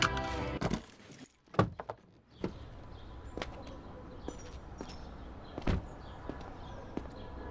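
Background music cuts off early, and after a short quiet a car door latch clicks. Over a steady outdoor hum, footsteps follow and an SUV door shuts with a thunk about six seconds in, then a footstep on pavement.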